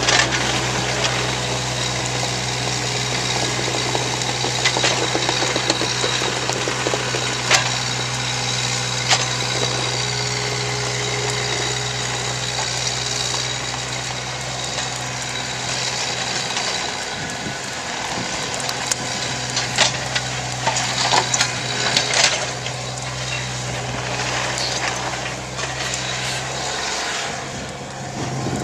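A John Deere 35 compact excavator's diesel engine running steadily as the machine tracks and swings, with scattered clanks and knocks of steel and rock. The low engine hum drops away near the end.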